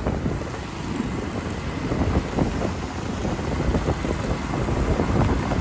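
Steady road noise of riding a two-wheeler through town traffic: a low rumble of engine, tyres and wind on the microphone.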